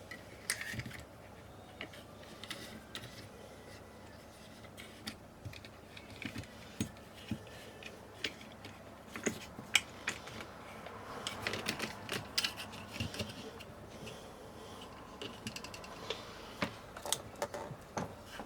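Irregular light clicks, taps and clatter of small tools and parts being handled on a workbench, busier for a couple of seconds past the middle.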